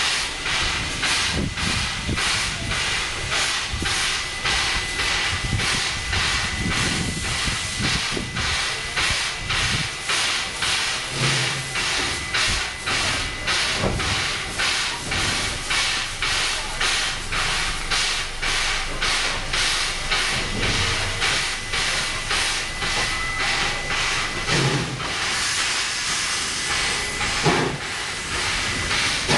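NSW C36-class steam locomotive 3642 working a train away, its exhaust making a steady rhythm of chuffs with a hiss of steam. Near the end the beats blur into a steadier hiss, and there is a sharp knock.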